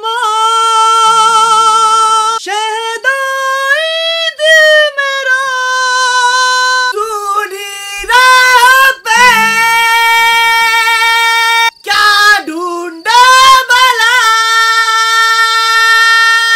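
A high-pitched voice sings long, held notes with vibrato in a Bollywood film song, over sparse, faint accompaniment. The notes are chopped off suddenly several times where the song clips are cut together.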